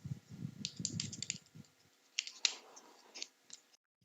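Plastic laptop battery casing being cut and pried open with a knife: a run of sharp clicks and short scrapes, with low handling bumps in the first second and a half and a longer scrape about two and a half seconds in.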